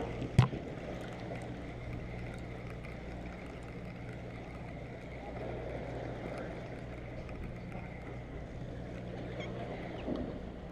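Fishing boat's engine running with a steady low hum under wind and water noise. A single sharp knock comes about half a second in.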